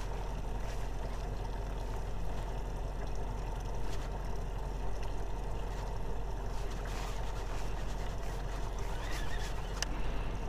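Steady low hum and faint water noise around a small fishing boat sitting on calm lake water, with a few faint clicks.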